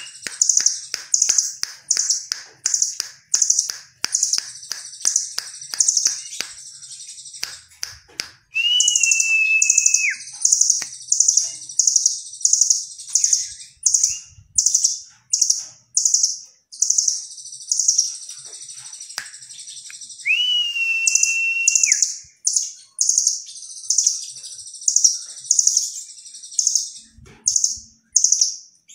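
Caged blue nuthatch singing: fast runs of very high, sharp repeated notes, a few each second, with two long, steady, lower whistles, one about a third of the way in and one about two-thirds in.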